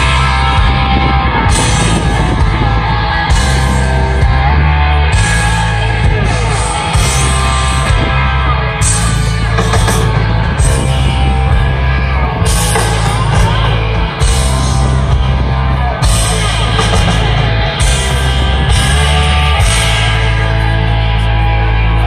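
Live rock band playing loudly through a stage PA: electric guitars over a drum kit, with cymbals crashing at a steady beat.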